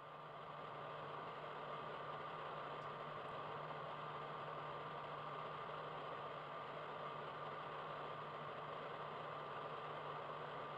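Faint steady hiss and hum of an old film soundtrack, with a thin steady high tone running through it; it cuts in suddenly out of dead silence right at the start.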